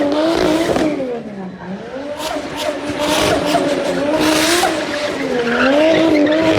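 Nissan Skyline R33 drift car's engine held high in the revs, its pitch wavering up and down, with tyre squeal and hissing bursts of wheelspin from about two seconds in as the car spins.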